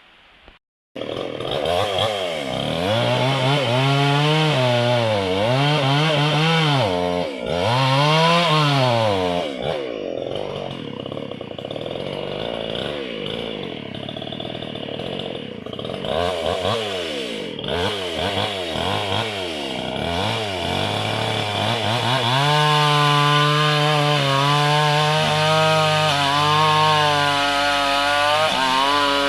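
Two-stroke chainsaw coming in abruptly about a second in and revved up and down repeatedly. It then runs more unevenly at lower revs, and near the end it is held steady at high revs.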